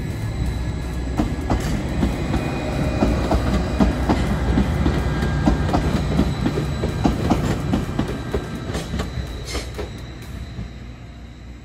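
Modern Greater Anglia multiple-unit passenger train running past: its wheels click over the rail joints in a quick uneven rhythm over a steady low engine hum. It swells to a peak around the middle and fades away near the end.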